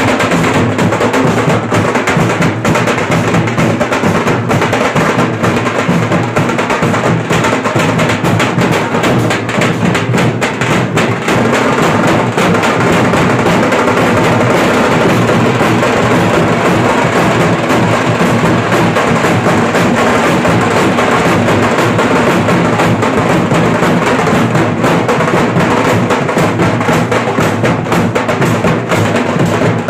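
A dhol pathak, many large dhol drums with steel shells beaten together with sticks and hands, playing a loud, dense, driving rhythm without a break.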